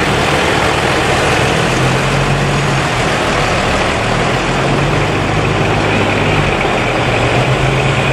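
Fire truck diesel engines running as the heavy trucks roll slowly past, a steady low drone.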